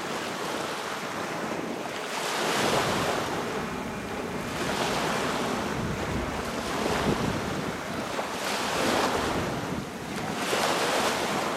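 Small waves washing in over a shallow sandy shore, the noise swelling and ebbing every couple of seconds, with wind buffeting the microphone.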